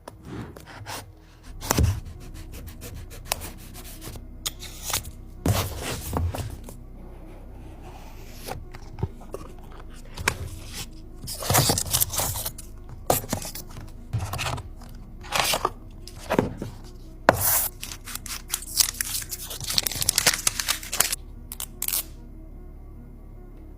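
A smartphone box being unpacked by hand: irregular bursts of tearing, crinkling plastic wrap and scraping cardboard, over background music.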